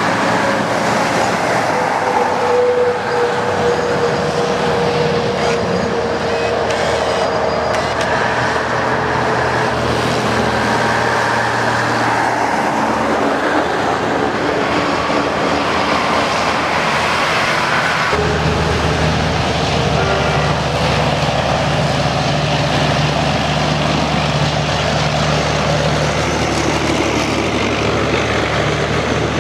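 Convoy of Ural six-wheeled military trucks driving past one after another, engines running steadily over the hiss of tyres on a wet road. A deeper engine drone sets in a little past halfway as the next truck comes close.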